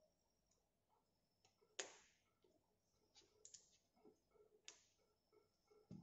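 Faint, sharp clicks and taps of metal tweezers against the parts of a disassembled camera lens as it is handled and set down, a handful of separate clicks with the loudest about two seconds in.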